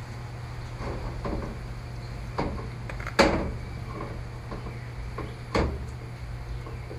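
Sharp plastic clicks and snaps from prying at the back cover of a Samsung Galaxy Tab 4, with light handling rustles. There are three distinct clicks; the loudest comes about three seconds in. A steady low hum runs underneath.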